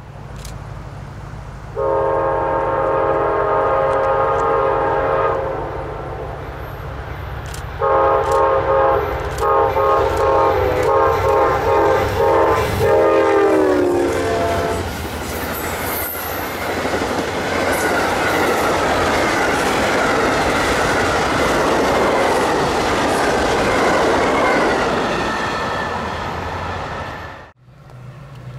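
Diesel locomotive's multi-chime air horn: one long blast, then a series of blasts whose pitch drops at the end as the train goes by, over the low rumble of the diesel engine. Then the steady rolling and wheel clatter of the passing train, cut off suddenly near the end.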